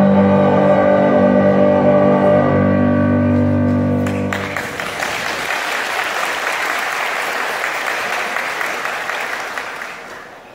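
A choir holds its final sung chord for about four seconds and cuts off, then the audience applauds, the clapping dying away near the end.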